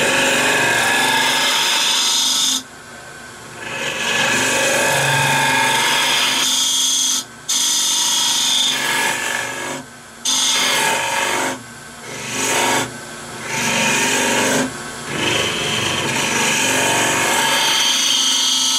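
Round-nose scraper hollowing the inside of a wood blank spinning on a lathe, a steady scraping hiss. It comes in passes of a few seconds, broken by several short pauses.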